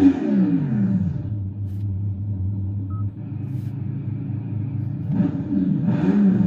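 Custom simulated engine and exhaust sound played through a Hyundai Ioniq 5 N's stock speakers. The revs fall away in the first second to a steady low idle rumble, then rise and fall again in quick blips near the end.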